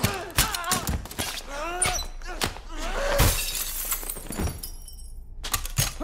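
Movie fight sound effects: a rapid run of blows, crashes and something shattering, with short grunts and cries from the fighters. There is a brief lull just before the end, then more hits.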